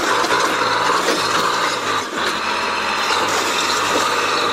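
Heavy earthmoving machine running, its diesel engine giving a steady low hum under continuous mechanical noise.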